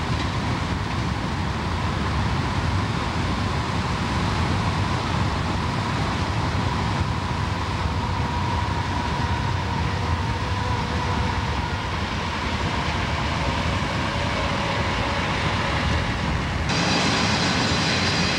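Santa Fe freight train of piggyback truck trailers and diesel locomotives passing close by: a steady heavy rumble of wheels on rail. Near the end the sound cuts suddenly to the brighter noise of a moving car's interior.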